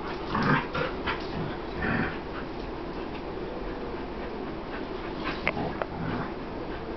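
Two dogs play-wrestling, one giving short whining noises in a few bursts, loudest near the start and about two seconds in, with a few sharp clicks about five and a half seconds in.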